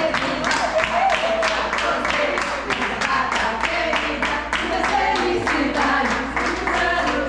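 A group of people singing a birthday song together while clapping in a steady rhythm, about four claps a second.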